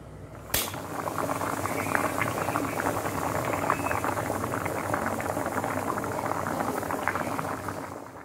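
Pot of water boiling hard around cubed potatoes: a dense, steady bubbling full of tiny pops that starts abruptly about half a second in.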